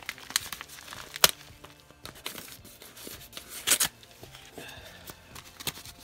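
Yellow padded mailing envelope being torn open and crinkled by hand: a run of sharp crackles and rips, the loudest about a second in and another cluster near four seconds.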